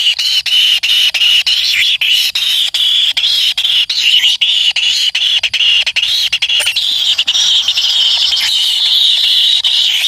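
Kingfisher nestlings begging for food with a continuous, high-pitched squealing chorus, broken only by brief gaps, as the parent feeds them.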